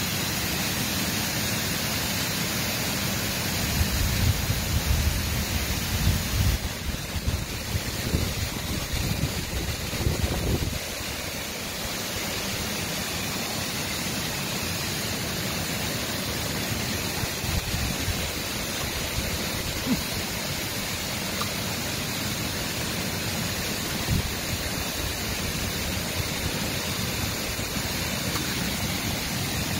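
Water spilling over a low concrete weir in a canal, a steady rushing. Uneven low rumbling and bumps run through the first ten seconds or so, then fade.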